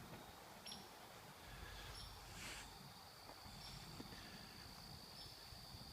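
Faint woodland ambience: a bird gives short high chirps every second or two, and a steady high insect drone joins about two seconds in.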